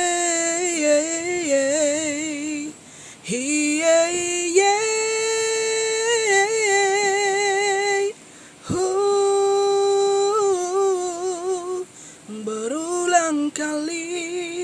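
Background music: a woman's singing voice holding long notes with a wavering vibrato, in about four phrases separated by short pauses.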